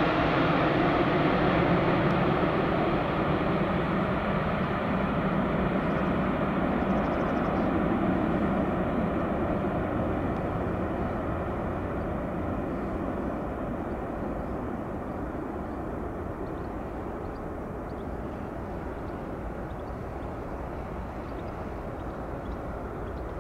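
Airbus A350-900 jetliner on final approach with its gear down, the steady roar of its Rolls-Royce Trent XWB engines at approach power. It is loudest at first and fades steadily as the aircraft moves away toward the runway.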